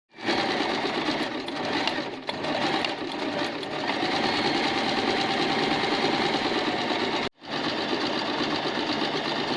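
Usha Janome Wonder Stitch Plus electric sewing machine running steadily, driven by pressing its foot pedal, with a brief sudden stop about seven seconds in before it runs again.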